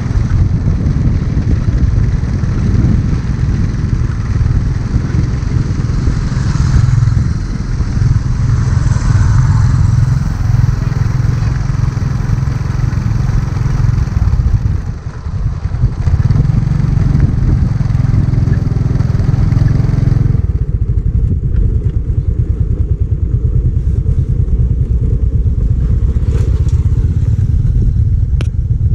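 Loud, steady low rumble of riding along a dirt road, with wind buffeting the microphone and the running noise of the vehicle. The higher hiss drops away about two-thirds of the way through, leaving the rumble, and a few sharp clicks sound near the end.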